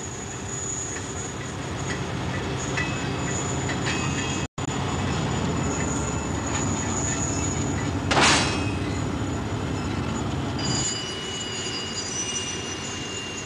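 Freight wagons rolling slowly over yard track, a steady rumble with thin, high-pitched wheel squeal. One short loud burst of noise about eight seconds in, and the sound shifts about eleven seconds in.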